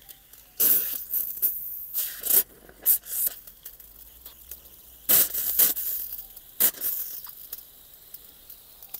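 Irregular rustling and scraping of a long garden hose being handled and pulled out, in short bursts with pauses between them.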